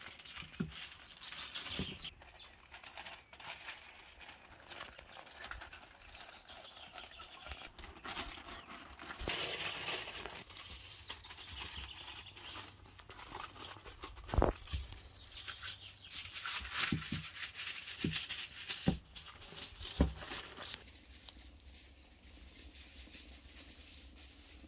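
Baking paper and aluminium foil rustling and crinkling as they are folded by hand around a raw cow's head, with a few sharp thumps about halfway through.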